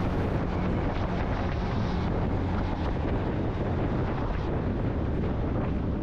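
Yamaha FZ-X's single-cylinder engine running at a steady cruise, mixed with steady wind rush on the microphone.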